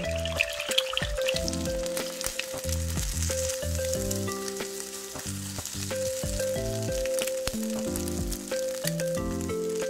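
An egg sizzling in a hot nonstick frying pan, with scattered clicks and scrapes as wooden chopsticks scramble it, under background music of held, stepping notes.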